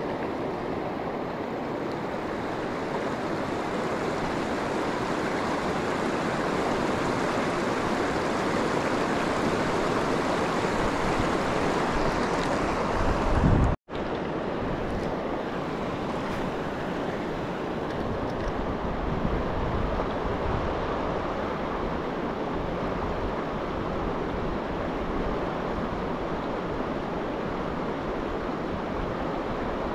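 Steady rush of river rapids and fast current. About halfway through, a brief low rumble of wind on the microphone, then the sound cuts out for a split second.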